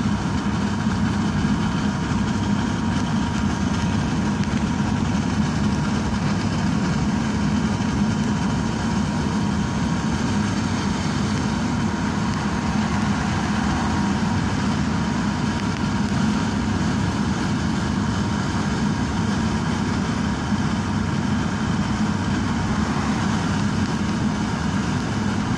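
Steady road and engine noise of a car driving at highway speed, heard from inside the vehicle, with a constant low drone that does not change.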